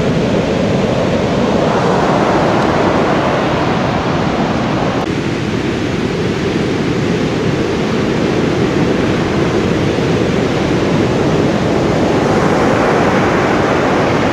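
Large ocean waves breaking on the shore, a loud, steady rush of surf with wind noise on the microphone.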